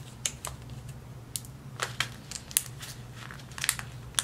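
Plastic pouch of loose tea crinkling and crackling as fingers work its resealable zip top open, in irregular scattered snaps.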